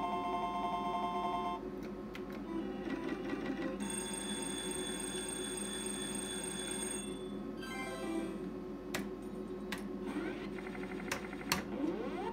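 Novomatic Sizzling Hot slot machine's electronic sounds: ringing, beeping tones as winning credits are counted up, then a few sharp clicks and rising tone sweeps near the end as the gamble feature opens.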